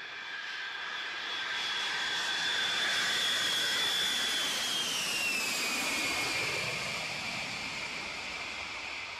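Four-engine jet airliner taking off: a rushing jet noise with a high whine that swells, then drops in pitch about five to six seconds in as the plane goes past.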